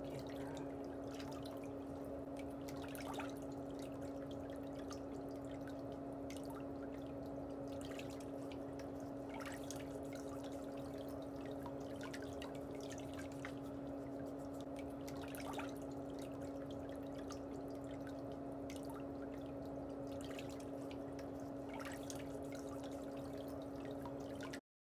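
A steady low hum, with faint, irregular ticks and scrapes of a metal pedicure pick working under a toenail.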